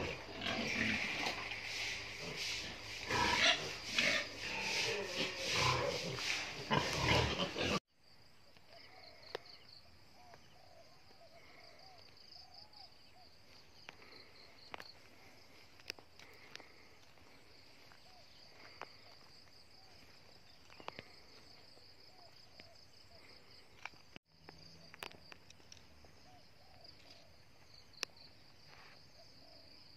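Piglets squealing and grunting loudly in a pen for the first several seconds, cut off suddenly. Then a quiet rural background with a steady, high, pulsing trill and a few faint ticks.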